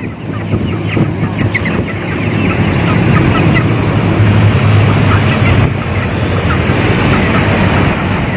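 Traffic and road noise heard from a moving car: a steady low rumble with many short, high chirps over it.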